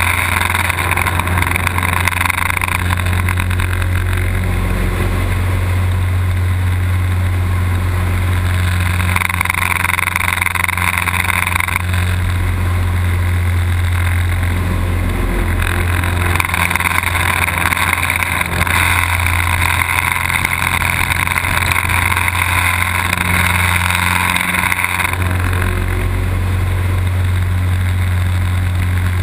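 Engine of a small propeller-driven aerobatic plane droning steadily, with rushing air, heard from inside the cockpit. Its higher tones swell and fade several times, each stretch lasting a few seconds.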